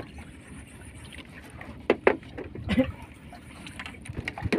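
Steady wash of sea and wind around a small outrigger fishing boat while a hooked fish is played on a bent spinning rod, with two sharp knocks about two seconds in and a few softer knocks near the end.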